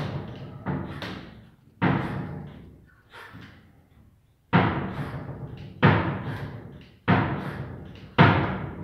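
Horror background music: a series of heavy, echoing hits about every second and a quarter, each fading away before the next.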